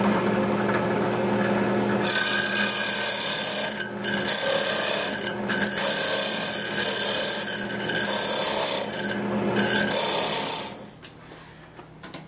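Drill press running with a steady hum while a hole saw bores into a block of wood. From about two seconds in there is a loud rasping cut, with a few short breaks as the feed eases off, and it stops near the end.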